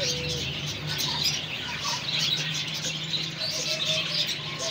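Many small birds chirping continuously in the background, with a few short low calls about three and a half seconds in, over a steady low hum.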